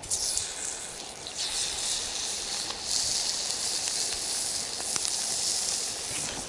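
Chicken thigh sizzling over a campfire, the hiss starting suddenly as the meat goes onto the heat and then holding steady, with a few faint crackles.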